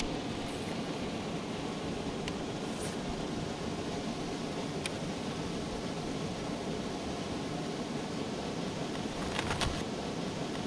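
Steady rushing wind noise on the camera's microphone, with a few short clicks about nine seconds in.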